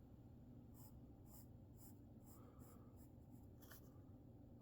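Pencil sketching on paper: a run of about nine short, faint scratching strokes.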